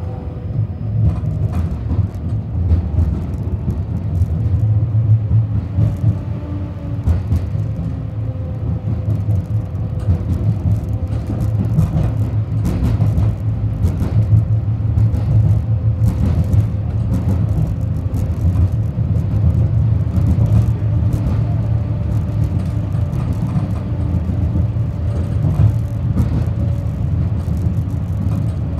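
Tram running along the track, heard from inside the car: a steady low rumble of wheels on rails with frequent irregular clicks and knocks, over a faint hum.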